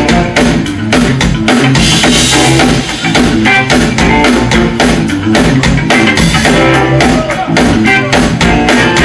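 Blues band playing live: electric guitar over electric bass and a drum kit, loud and steady with a regular drum beat.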